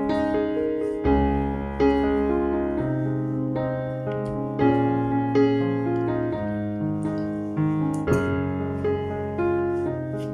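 Background piano music: a calm melody over sustained notes, the chords changing every second or two.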